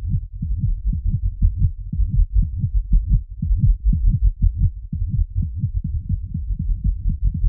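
A recorded heartbeat in a heartbeat soundscape: a fast, even run of deep thuds, about four to five a second, with nothing higher above them.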